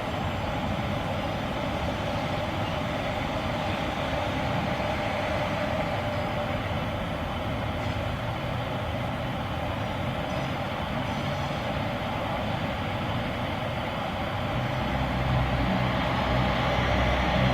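BNSF double-stack intermodal train rolling past: a steady noise of wagons on the rails. A low engine hum comes in near the end.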